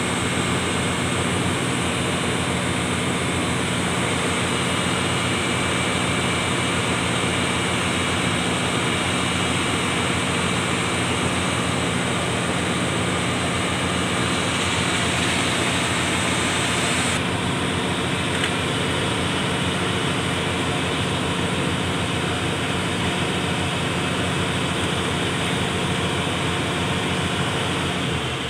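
Isuzu boom truck's diesel engine running at a steady fast idle, about 1,300 rpm, heard from inside the cab. About halfway through, a high hiss grows and then cuts off suddenly.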